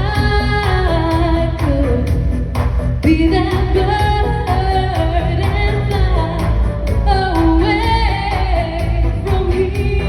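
A pop song with a woman singing long held, wavering notes over a band with a steady beat.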